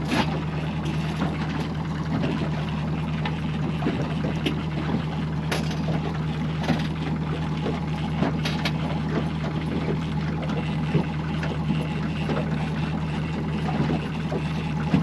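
Boat's outboard motor running steadily at low trolling speed, a constant low hum, with water washing against the hull and occasional light clicks and knocks.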